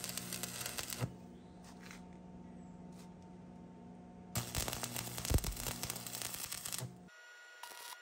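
Stick-welding arc with a 6013 rod crackling and sputtering as a steel caster plate is tack welded to the base: one tack ends about a second in, a second runs from about four and a half to seven seconds in. A steady low electrical hum sounds between the tacks.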